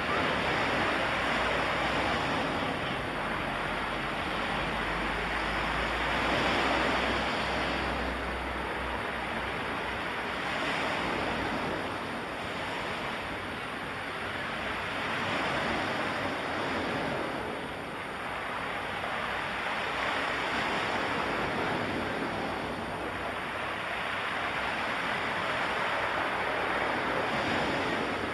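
Surf washing in: a steady rushing of waves that swells and eases every few seconds.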